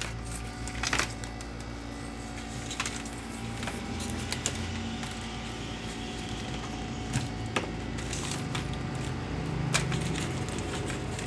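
Cables and plugs being handled by hand: scattered clicks, light knocks and rustling of wires, over a steady low hum.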